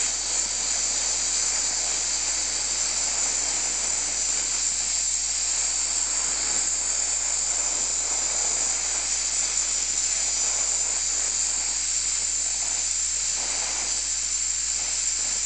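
Oxy-acetylene gas welding torch with a number 3 tip burning steadily: a continuous, even hiss of the flame. The tip is turned up hot to heat relatively thick steel before a puddle is started.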